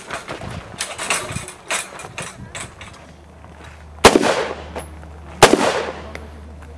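Two single shots from an AR-style semi-automatic rifle, about a second and a half apart, each followed by a ringing echo. Before them come softer, sharper knocks and scuffs as the shooter moves into position.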